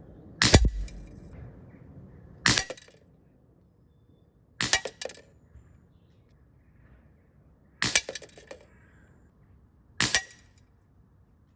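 Dan Wesson 715 CO2 BB revolver firing steel BBs at a target, five sharp cracks about two to three seconds apart.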